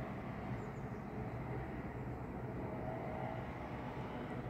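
Steady low outdoor background rumble, an even noise without distinct events.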